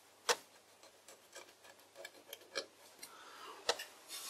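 Light handling of stringy metal chips at a stopped lathe chuck: a few sharp metallic clicks, the loudest just after the start, with light scraping and rustling between.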